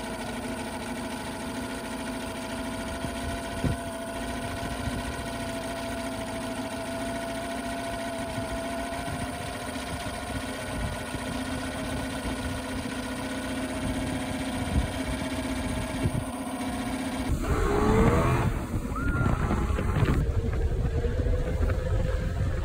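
2006 Honda 8 hp four-stroke outboard idling steadily with its lower unit in a barrel of water, run to flush out salt debris. Near the end it cuts suddenly to a motorboat underway on open water, its engine pitch rising and falling.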